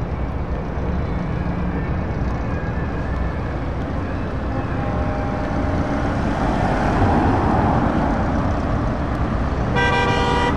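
Road traffic passing in a slow convoy: a Ford Transit Custom van's engine and tyres swell as it drives past close by. A horn blasts briefly near the end.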